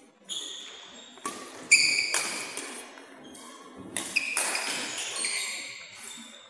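Badminton rally on an indoor court: several sharp racket strikes on the shuttlecock, the loudest about a second and a half in, with short high-pitched shoe squeaks and footfalls on the court floor between them, echoing in a large hall.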